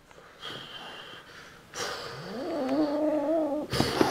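A kitten letting out one long, drawn-out meow that rises at the start and is held for about two seconds. A brief knock follows near the end.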